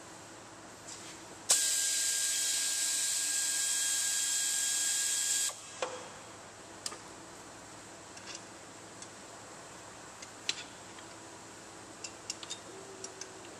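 Pneumatic air ratchet running for about four seconds, with a steady whir and hiss of air, as it spins out a 17 mm engine mount bolt. It cuts off suddenly, then comes a clunk and a few light metal clicks of the tool and socket being handled.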